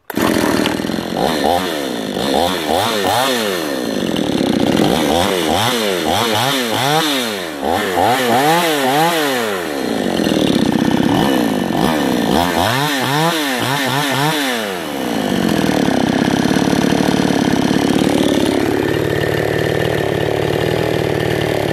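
52cc two-stroke chainsaw running, revved up and down again and again for about fifteen seconds, then dropping back to a steady idle.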